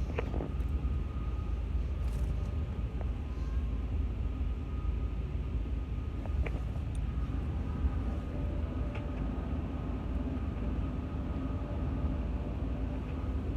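Steady low rumble of a vehicle in motion, with a faint thin tone running above it.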